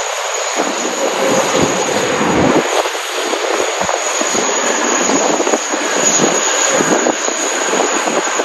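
Boeing 777-300ER jet engines running as the airliner arrives, a steady broad jet noise with a thin high whine, while gusts of wind buffet the microphone in irregular low surges.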